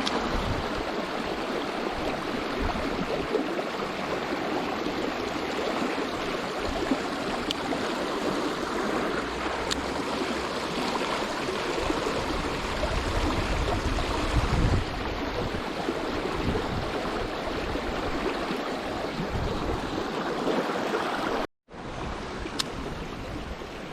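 Flowing stream water rushing steadily, a constant even wash. It cuts out for a moment near the end and then resumes a little quieter.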